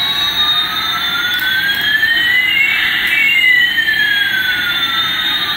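Electronic jet-engine sound effect: a steady hiss with two whining tones sliding past each other, one falling and one rising, crossing about halfway through.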